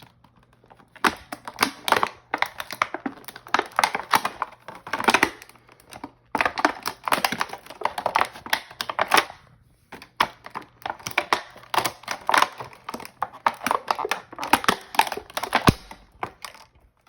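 Plastic packaging being handled, crinkling and clicking in irregular spells, with a single heavier knock near the end.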